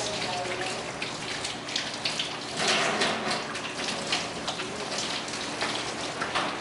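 Water running from a kitchen tap into a stainless-steel sink while hands are washed under it, splashing unevenly.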